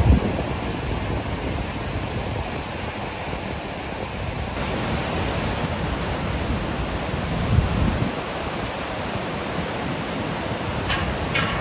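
Steady rain falling, a dense even hiss, with low rumbles of wind on the microphone at the start and about seven and a half seconds in. Two short high-pitched chirps sound near the end.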